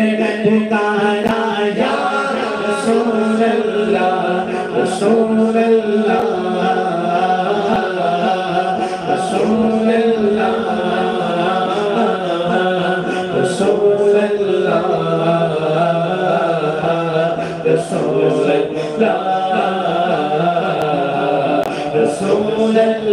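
Unaccompanied male voices singing an Urdu devotional kalam (naat) through a microphone: a lead voice's ornamented melody over a steady low held note from a second singer.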